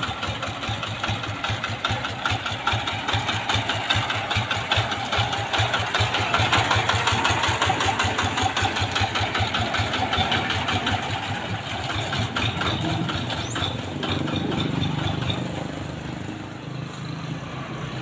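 Tractor diesel engine running with rapid, regular firing pulses. About two-thirds of the way in the pulses fade and a lower, steadier hum takes over.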